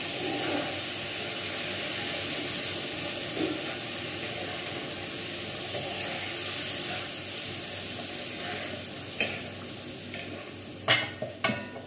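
Water poured into hot roasted semolina (suji) and vegetables in a pan, sizzling while a spatula stirs it, as water goes in for upma. The sizzle slowly dies down, and near the end the spatula clicks and scrapes against the pan a few times.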